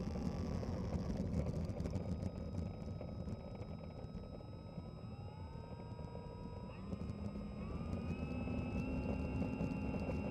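Onboard sound of an FMS P-47 1500mm electric RC warbird taxiing on tarmac: its brushless motor and propeller whine, rising in pitch in several steps from about halfway, over a steady low rumble.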